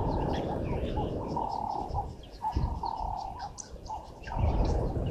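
Wild birds chirping in many short, high calls over a low rumble, with a pulsing call near 1 kHz. The rumble eases off for about two seconds in the middle.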